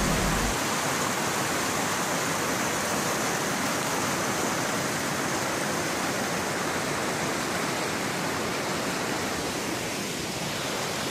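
Small mountain stream rushing over rocks: a steady, even rush of water.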